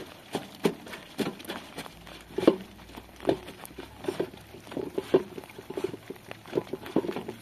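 Clothes being hand-washed in a metal basin of soapy water: wet fabric scrubbed and squeezed, with irregular splashes and squelches about twice a second, the loudest about two and a half seconds in.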